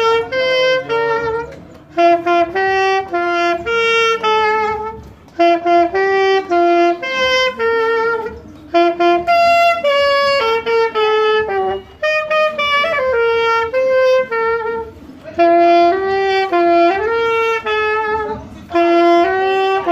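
Saxophone played solo, a melody in short phrases of held notes, with brief breaks for breath between them.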